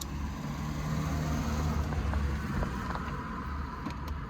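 A motor vehicle engine running with a low, steady rumble that swells slightly about a second in.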